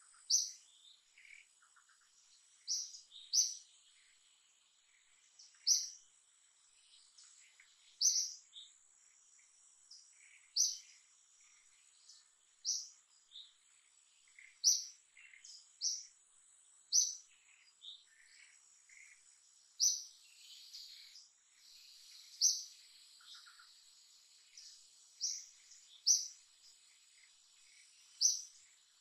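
Birds calling in short, high, sharp chirps that repeat every second or two, over a faint steady high-pitched insect drone.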